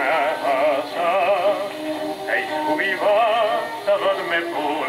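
A 78 rpm record playing on an Audiotronics 326 classroom record player, heard through its built-in speaker. A singer with heavy vibrato sings over accompaniment, and the sound is thin, with little deep bass or high treble.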